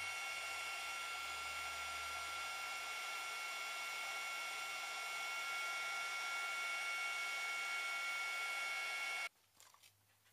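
Heat gun blowing hot air onto rhinestone chain to melt low-temperature solder: a steady rush of air with a high whine, cutting off suddenly near the end.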